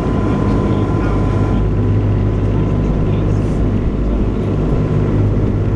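Engine of a small passenger ferry, a converted lifeboat, running steadily under way, a constant low drone with wind and rushing water over it on the open deck.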